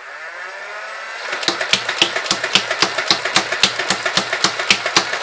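Nerf flywheel blaster's motors spinning up with a rising whine, then, about a second and a half in, firing darts from an 18-dart magazine in quick succession, about five shots a second, over the steady motor whine.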